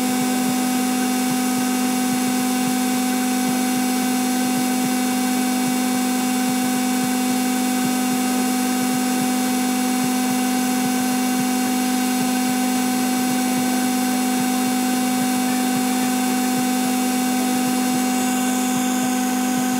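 SC Techno CS83 Asahi-type tubular-bowl high-speed centrifuge running at full speed, about 15,100 rpm, a loud steady drone that holds one constant pitch.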